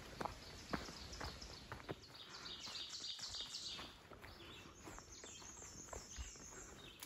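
Footsteps of a hiker walking on a dirt forest trail, with a songbird singing a quick run of repeated high notes about two seconds in. A second series of higher notes, stepping down in pitch, follows a little later.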